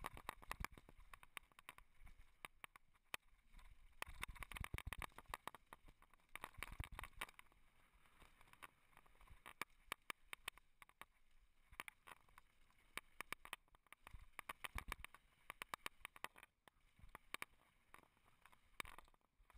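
Faint, irregular clatter and rattling of a Specialized Stumpjumper mountain bike descending at speed: tyres over loose gravel and rocks, with chain and frame rattling over the bumps.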